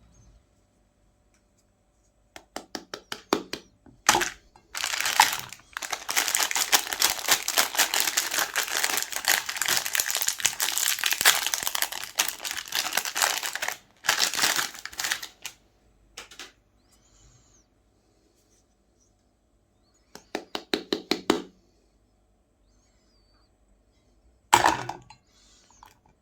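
Chocolate-coated Magnum ice cream bars crackling and crunching as a meat grinder crushes them. The crackling comes in short bursts, with one long run of about ten seconds near the start.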